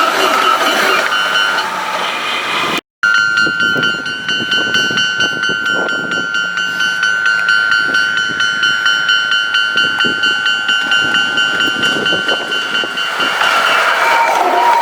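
Railway level-crossing alarm ringing in fast, even beats, with a train clattering past over the crossing, the whole sped up to double speed so it runs quick and high-pitched. A brief dropout breaks it about three seconds in.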